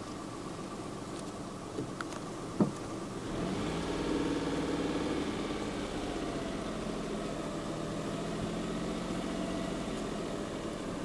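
A vehicle engine idling, with one sharp click about two and a half seconds in. A little later the engine note rises and runs louder and steady.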